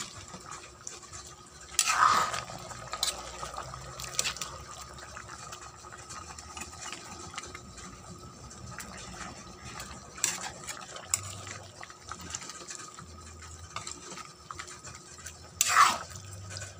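Chicken pieces being stirred and turned in a metal pan with a utensil, scraping against the pan, with two louder scrapes about two seconds in and again near the end.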